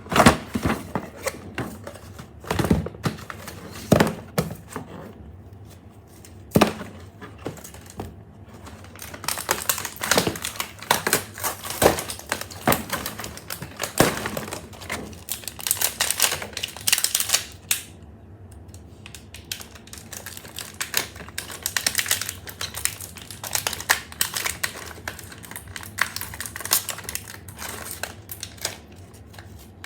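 Toy packaging being handled and opened: a few sharp clicks and knocks, then long runs of dense crackling and crinkling, like plastic and cardboard being pulled apart.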